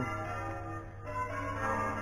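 Church bells ringing, several tones sounding together and lingering.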